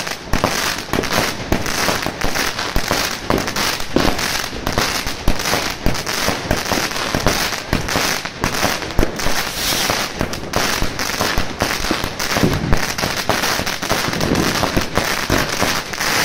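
Pangu 'Rain Man' firework cake firing: a dense, rapid crackle of glittering crackling stars, with heavier pops scattered among it, going on without a break.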